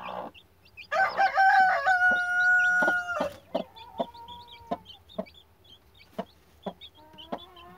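A rooster crows once about a second in: a few quick notes, then a long held final note that falls away. Newly hatched chicks peep repeatedly, and the broody hen gives short clucks.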